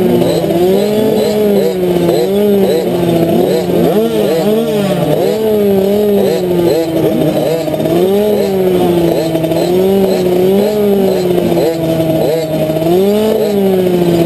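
Small 65cc two-stroke motocross bikes revving. One engine dominates, its pitch climbing and dropping with the throttle every couple of seconds, while several other dirt bikes rev and shift around it.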